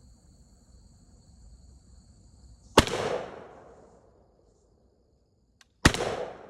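Two shots from a JTS AK-style semi-automatic 12-gauge shotgun firing low-brass birdshot, about three seconds apart, each with an echo fading over about a second. Crickets chirp steadily until the first shot.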